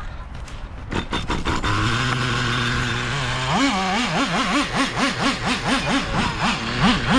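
Traxxas Revo 3.3's small two-stroke nitro engine starting up about a second in, running at a steady idle, then revved in quick repeated throttle blips, its pitch rising and falling about twice a second.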